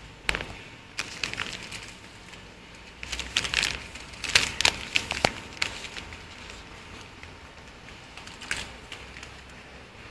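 Plastic-film packs of wet wipes crinkling and clicking as they are handled, in irregular bursts of sharp crackles, the busiest about three to five seconds in.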